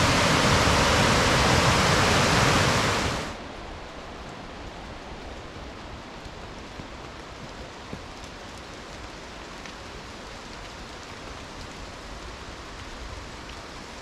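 Loud steady rushing of a mountain river's water. About three seconds in it cuts off abruptly to a much quieter, even hiss.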